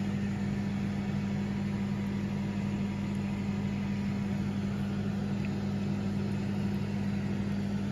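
Air fryer running with a steady, even hum.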